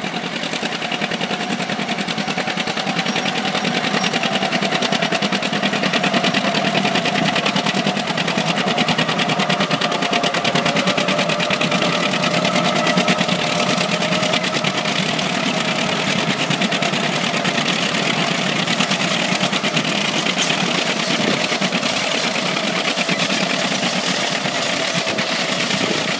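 John Deere 'triple 830' four-wheel-drive tractor's two-cylinder diesel engines working under load, pulling a 45-foot field cultivator: a steady, fast exhaust beat that grows louder a few seconds in.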